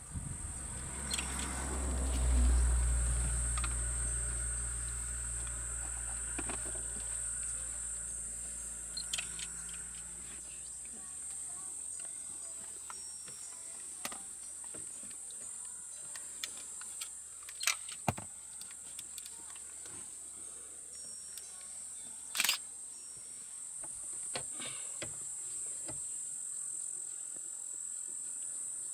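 Steady high-pitched drone of insects in the bush, with a few sharp clicks and one short burst of noise about twenty-two seconds in. A deep, sustained intro music sting is loudest in the first few seconds and dies away by about ten seconds in.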